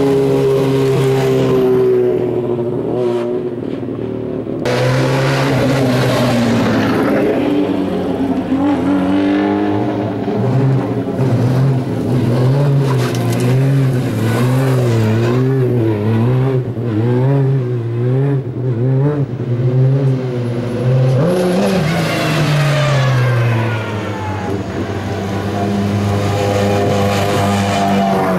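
Sports-prototype race car engines running as the cars roll past at low speed. Through the middle, the engine pitch rises and falls about once a second as the throttle is blipped. Near the end a pitch glides down.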